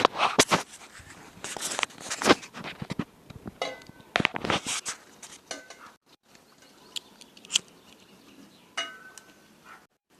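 Irregular knocks, clicks and rattles of objects being handled, busy in the first half and sparse after, with a few brief ringing tones.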